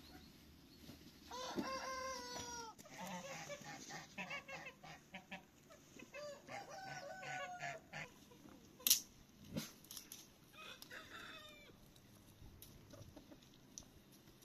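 A rooster crows once about a second in, followed by more clucking and calls from chickens. A single sharp click near the middle is the loudest sound.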